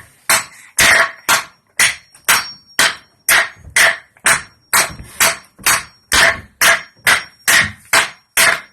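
A hammer striking a nail into a wooden board over and over, at a steady pace of about two blows a second.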